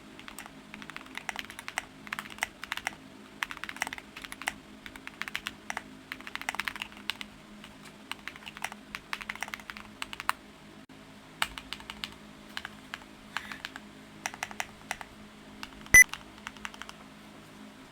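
Typing on a stock Qwertykeys QK75 mechanical keyboard: bursts of rapid key clacks with short pauses between them. Near the end comes one much louder, sharper click.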